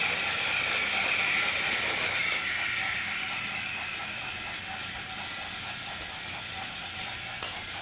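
Battery-powered TOMY Thomas and Ben toy engines running on plastic track: small electric motors and plastic gears whirring steadily, with faint regular ticking, fading as the trains run away.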